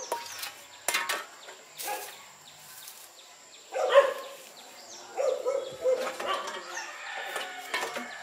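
Chickens clucking and squawking in a run of short calls, the loudest about halfway through, with a few sharp clicks near the start.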